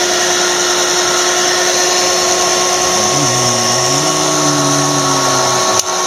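Vintage Siemens hairdryer running steadily, its fan motor whirring with an airy hiss, and a single click near the end.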